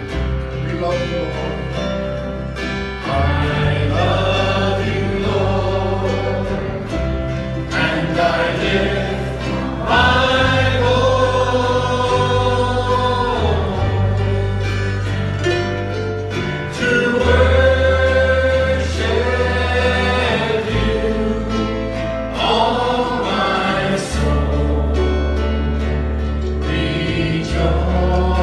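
A Christian worship song with several voices singing together over sustained bass notes that change every couple of seconds.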